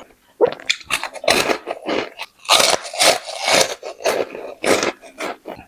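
Close-miked mouth sounds of someone eating spicy chicken: loud, irregular chewing, smacking and crunching bursts.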